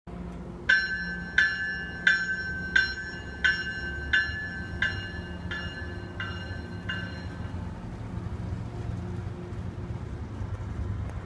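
MBTA commuter train's warning bell ringing as it arrives, about ten evenly spaced strokes, one every 0.7 seconds, growing weaker and stopping after about seven seconds. A steady low rumble from the train continues underneath.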